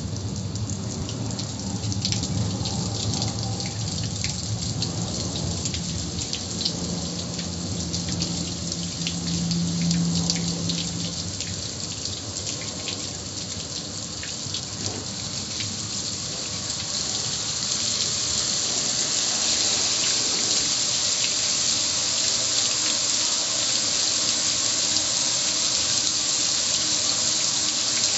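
Water spray pattering and splashing on a gas grill's metal lid and control panel, a steady hiss with scattered drip ticks. It grows louder and brighter about two-thirds of the way through.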